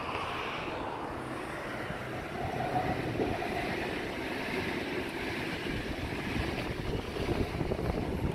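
Regional double-deck passenger train passing along the tracks below, a steady rushing rumble, with wind on the microphone.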